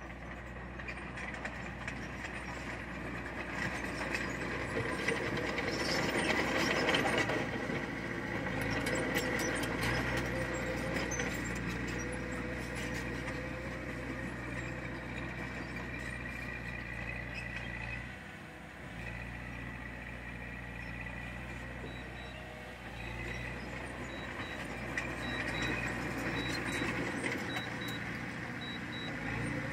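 Heavy diesel construction machinery running: a steady low engine drone that swells around six to seven seconds in and briefly eases off just past halfway. Faint regular beeps join in the last third.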